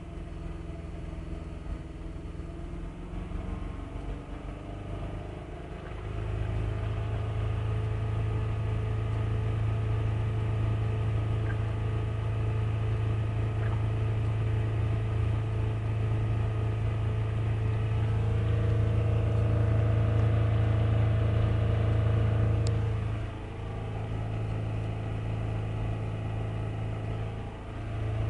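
Car engine running with a steady low hum, brought up to higher revs about six seconds in and held there, then dropping back to a lower speed near the end before rising again.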